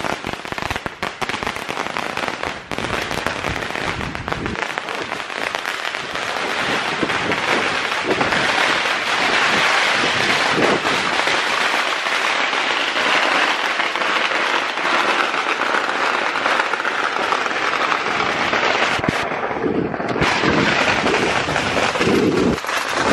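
Long rolls of thousands of small firecrackers going off in one continuous rapid crackle, the pops running together without a break.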